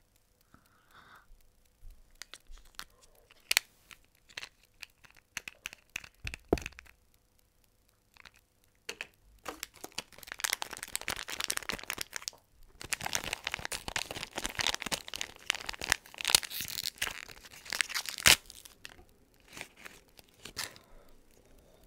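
Toy packaging being unwrapped by hand close to the microphone. Scattered clicks and rustles come first. From about halfway in there are several seconds of dense crinkling and tearing, broken by a short pause and ending with a sharp snap.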